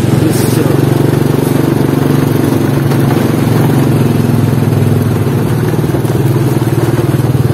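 Motorcycle engine running steadily at low riding speed, heard from the rider's seat.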